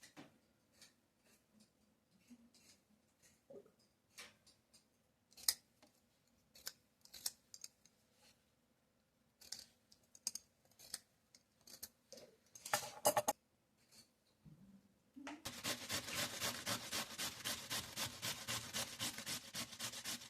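Scattered light clicks and knocks of kitchen work, then, from about three quarters of the way in, a fast, even run of scraping strokes, about four to five a second, as potato is worked with a kitchen utensil.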